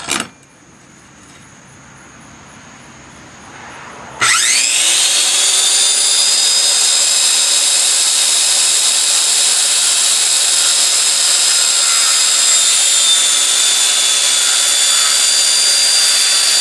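Handheld circular saw (Skil saw) starting up about four seconds in with a rising whine, then running steadily at a high-pitched whine while cutting 2x4 sawhorse legs to length.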